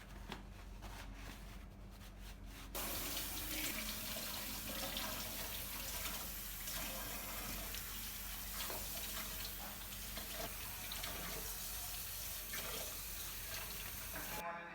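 Water running from a tap into a sink, turned on about three seconds in and shut off abruptly near the end.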